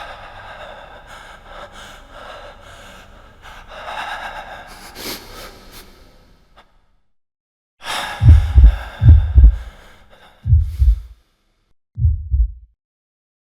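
Heartbeat sound effect: deep double thumps in lub-dub pairs, starting about eight seconds in and coming four times, further apart each time. Before them come a few seconds of breathy gasping, then a brief silence.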